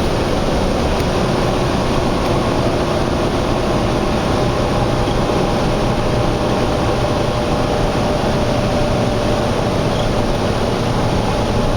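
Steady vehicle and road noise from highway traffic, with a faint engine hum running under it.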